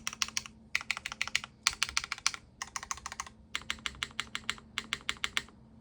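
Typing on a Dolphin 2024 mechanical keyboard with a full aluminium plate, O-ring mount, no foam, Cherry MX Black linear switches polished with diamond paste, and GMK keycaps. The keys are struck in quick runs with short pauses between them, and the typing stops shortly before the end.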